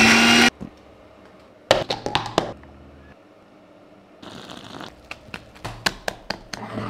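Mixer grinder motor running briefly and cutting off about half a second in. Later a soft hiss as chili powder is spooned onto flour, then a wire whisk ticking rapidly against a glass bowl as batter is beaten.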